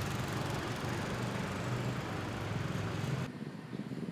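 Motor vehicle running with road noise and a steady low hum. It cuts off abruptly about three seconds in, leaving a quieter steady low hum.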